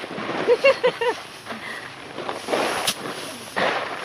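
Bundles of harvested rice being beaten by hand to thresh out the grain: a rustling swish and a sharp strike about three seconds in, with more rustling near the end. Four short voice sounds, like a laugh, come about half a second in.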